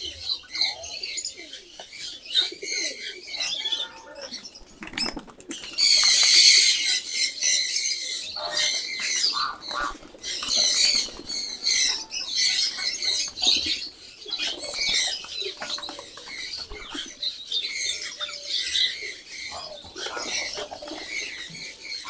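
Domestic pigeons flapping their wings as they are let out of their loft and fly off, in repeated flurries of wingbeats, the loudest about six seconds in.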